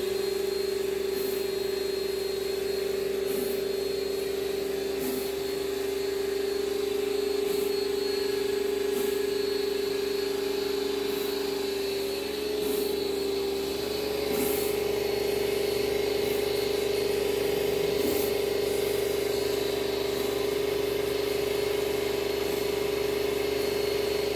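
Kärcher 1800 PSI electric pressure washer running steadily with its surface-cleaner head, a constant motor-and-pump hum that starts at the outset.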